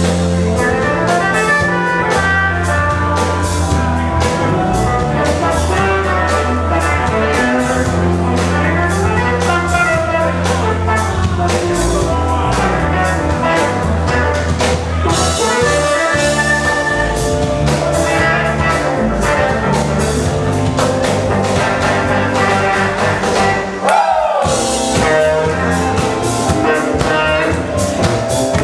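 Live electro-jam band playing: drum kit, bass line, keyboards and electric guitar over a steady groove with fast cymbal ticks. About three-quarters of the way through the sound briefly drops out, and a short falling pitch glide comes in.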